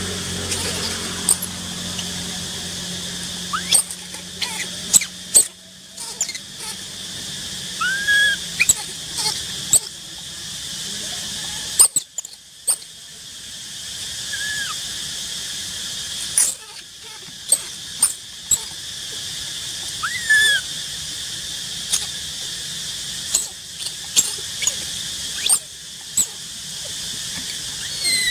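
Baby macaque giving short, high squeaks that rise and fall, a handful of times, among scattered sharp clicks and rustles over a steady high-pitched hiss.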